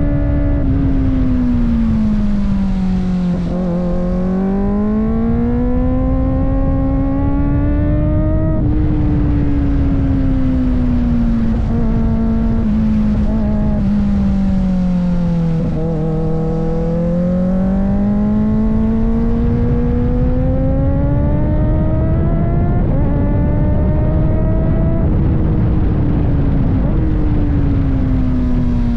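Kawasaki ZX-4RR's 399 cc inline-four engine under way, its pitch sinking as the throttle is rolled off and climbing again on acceleration, twice over, with a few short drops in pitch at the gear changes. A steady rush of wind and road noise runs underneath.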